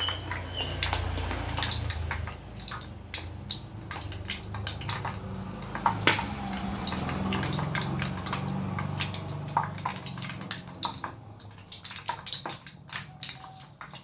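Hot oil sizzling and crackling around a filled lumpia-wrapper martabak deep-frying in a wok, with many small sharp pops and a louder pop about six seconds in, over a steady low hum.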